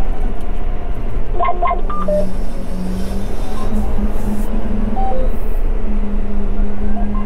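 John Deere 6215R tractor's engine droning steadily from inside the cab while it pulls a Kuhn Cultimer cultivator through the soil. Short electronic beeps of different pitches sound over it, a cluster about a second and a half in and a few more around five seconds in.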